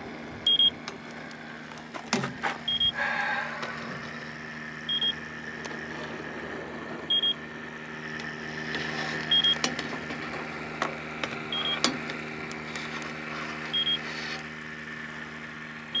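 Electronic refrigerant (Freon) leak detector beeping at its slow, even idle rate, short high beeps about every two seconds. The steady slow pace means no leak is being found. A steady low hum runs underneath, with a few light handling clicks.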